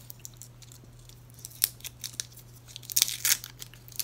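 Plastic candy wrapper being crinkled and torn open by hand: scattered sharp crackles, with a denser burst of crinkling about three seconds in.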